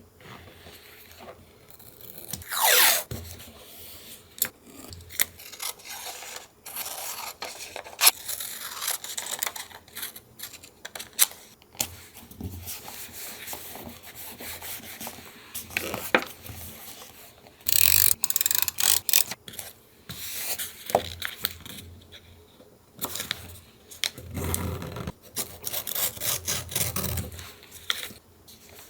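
Paper collage being worked by hand: paper rubbed, scraped and rustled, with many light clicks and taps. There is one loud, short sound falling in pitch about three seconds in.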